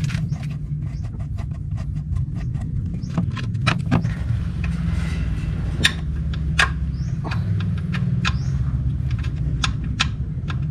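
Sharp, irregular metallic clicks and clinks of a hand tool working the screws of a Yamaha NMAX's CVT cover, over a steady low hum.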